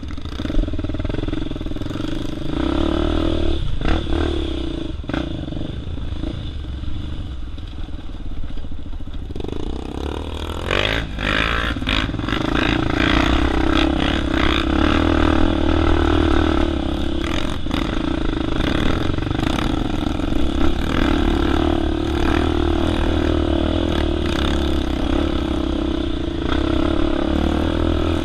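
Dirt bike engine running at low revs over a rocky trail, with clattering and knocks as the bike rides over rocks; about ten seconds in it opens up and runs louder and harder.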